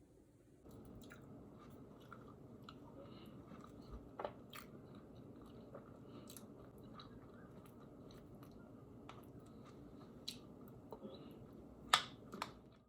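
Faint, irregular small clicks and crunchy taps over a steady low room noise, with one sharper click near the end.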